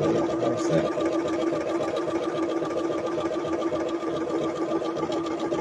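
Elna Experience 570A computerized sewing machine running steadily on its own, stitching an automatic one-step buttonhole in fabric with fast, even needle strokes over a steady motor hum.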